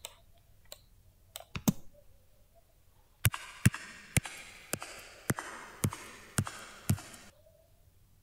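Footsteps sound effect played back: eight sharp heel clicks of a woman's shoes, a little over two a second, echoing as in a large hall from added reverb. A few separate clicks come before the steps.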